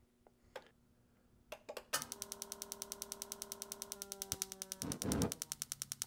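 Direct spark ignition system sparking at the burner spark rods: a few faint clicks, then a fast, even snapping of sparks, about ten a second, over a steady hum. About five seconds in, the gas lights on the burners with a short whoosh, and the sparking stops soon after.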